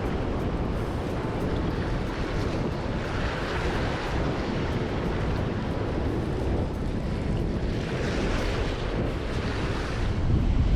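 Heavy surf washing against a rocky shore, with waves swelling up about a third of the way in and again near two thirds, and wind buffeting the microphone, stronger near the end. The sea is rough after a typhoon.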